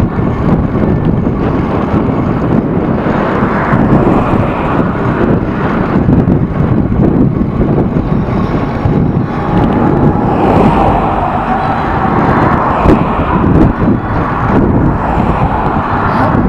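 Loud, steady low rumble of a moving vehicle with wind buffeting the microphone. A faint steady whine comes in about nine seconds in and fades out a few seconds later.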